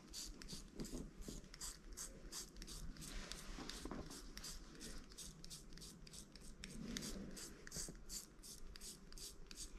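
Disposable razor scraping over the skin of the knee in quick short strokes, about three a second: dry-shaving hair before a knee injection.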